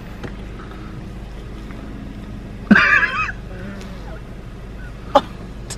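Steady low hum of a car running, heard inside the cabin, with one short high-pitched vocal cry about three seconds in and a sharp click near the end.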